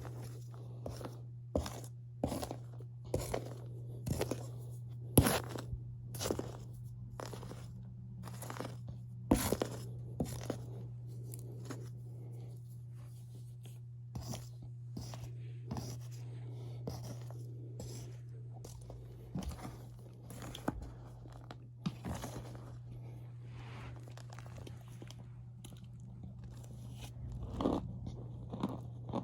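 Packed cornstarch crunching and squeaking as it is pressed and squeezed, in many separate irregular crunches, some much louder than others.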